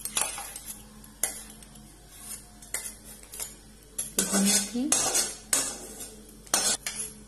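Metal spatula scraping and clanking against an aluminium kadai as fried bamboo shoots are scooped out of it, in irregular strokes, the busiest about four to five seconds in and again near the end.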